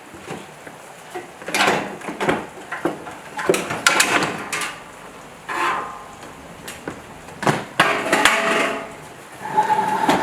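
Irregular clattering and knocking of hard objects, several strikes with a short metallic ring, like metal parts and tools being handled and set down.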